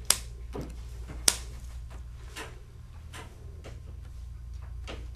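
Paper cards being laid down one by one on a wooden tabletop: a series of light taps and slaps, the two sharpest about a second apart near the start and fainter ones after, over a steady low hum.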